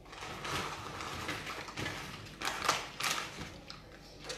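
Paper fast-food wrappers crinkling and rustling as burgers and fries are unwrapped and handed out, in several short bursts.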